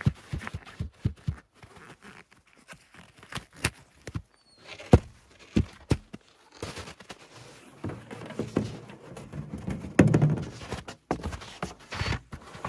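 Irregular knocks and clicks of snowy boots shifting in the strap bindings of wide wooden skis, then from about halfway a denser scraping and crunching as the skis start moving over the snow.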